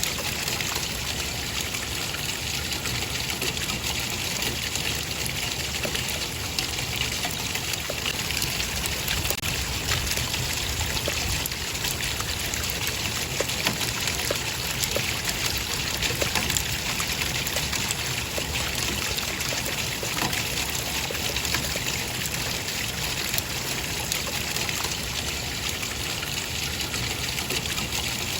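Running water trickling and splashing steadily, an even rush with small droplet ticks and a low rumble underneath.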